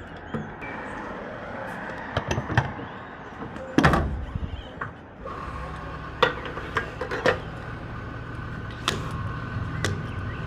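Engine idling steadily, with scattered clicks and knocks, the loudest about four seconds in.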